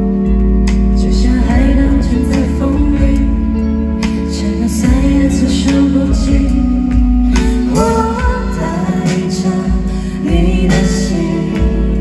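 A live band playing through an outdoor PA: electric guitars, bass, drums and keyboard, with a sung vocal melody that glides between notes over a steady drum beat.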